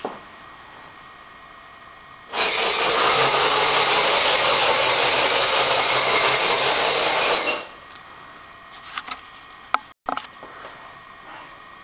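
Small electric motor driving a toy car through a 42:1 gear reduction: a steady mechanical whir with a high gear whine as the car runs across a wooden floor. It starts about two seconds in, lasts about five seconds and cuts off sharply, followed by a few light clicks.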